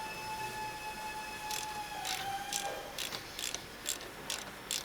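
Power ratchet undoing a brake caliper bracket bolt: a steady motor whine that drops slightly and cuts off about two and a half seconds in, with a run of sharp ratchet clicks through the second half.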